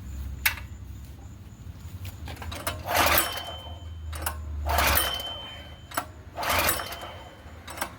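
Predator 212 single-cylinder engine being pull-started by its recoil rope, three pulls about two seconds apart, each with a short whirring whine as it spins down. It cranks without firing: a no-start.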